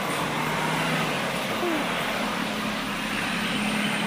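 A bus's diesel engine running steadily as it climbs, a low hum under a steady rush of road noise.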